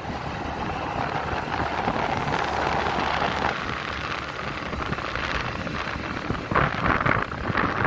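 Wind buffeting the microphone of a vehicle moving at highway speed, over a steady rumble of road and engine noise, with harder gusts near the end.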